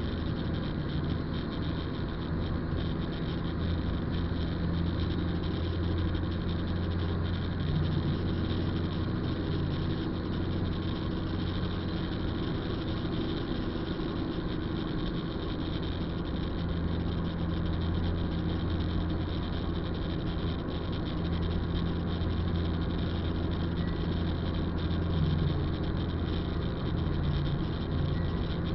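Car engine running steadily, heard from inside the cabin as a constant low hum.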